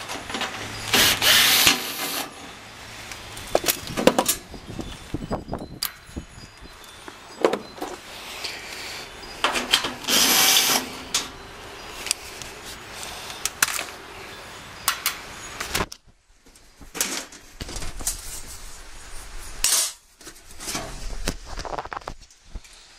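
Cordless drill with a nut-driver bit backing screws out of an air-conditioner condenser's sheet-metal access panel. It runs in several short bursts, with clicks and knocks of metal handling in between.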